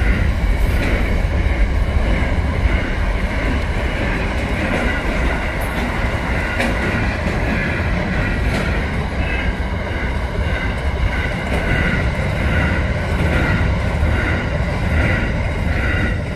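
Container wagons of an intermodal freight train rolling past on steel wheels: a steady heavy rumble, with scattered clicks over the rails and a wavering higher squeal from the wheels.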